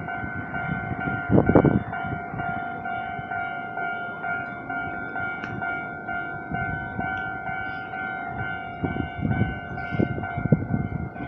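Level-crossing warning bell ringing as a steady tone, with a Nankai Koya Line train passing. Its wheels thump over the rail joints about a second and a half in and again in a quick run near the end.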